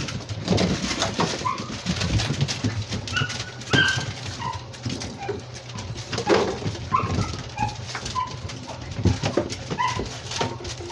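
Seven-week-old Labrador retriever puppies playing: scattered short, high squeaks and yips among frequent clicks and knocks of paws and toys on a tiled floor.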